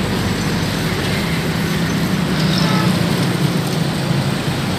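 Steady road traffic on a bridge: a continuous low rumble with a hiss over it.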